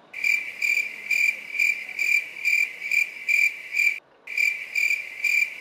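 Cricket-chirping sound effect: a steady high trill pulsing about twice a second. It starts suddenly, drops out briefly near the end and then cuts off sharply. It is the "crickets" gag for an awkward silence.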